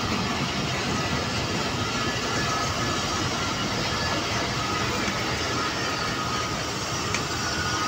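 Pakistan Railways passenger coaches of a departing express rolling past close by: a steady, unbroken noise of wheels running on the rails.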